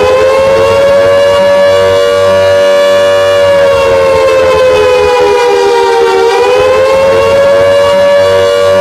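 Civil defence warning siren sounding one long, nearly steady tone, its pitch sagging slightly about six seconds in and then rising back.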